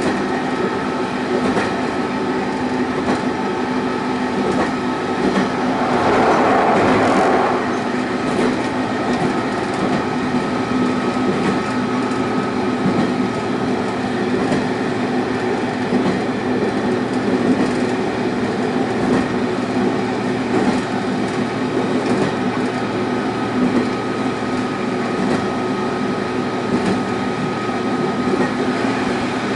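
Sanriku Railway diesel railcar running along the line: a steady engine drone with a held tone over the roll of the wheels on the rails. There is a brief louder rush about six seconds in.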